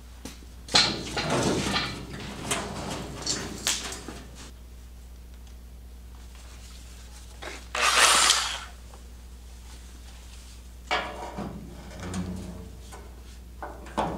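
Clanks and rattles of a ratchet strap and metal being handled in the first few seconds, then one short loud rush of noise about eight seconds in and a few more knocks near the end, over a steady low hum.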